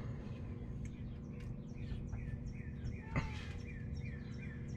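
Birds chirping; from about two seconds in, one repeats a short falling chirp about three times a second. Under it runs a steady low hum, and a brief knock comes a little after three seconds.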